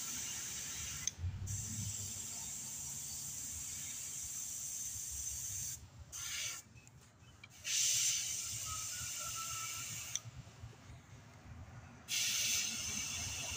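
Airbrush spraying paint in a steady hiss, cut off for short pauses as the trigger is let go: briefly about a second in, a couple of times between six and eight seconds, and for about two seconds after ten seconds.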